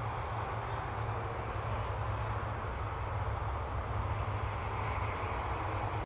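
Steady outdoor background noise: a low rumble with a hiss over it and no distinct events.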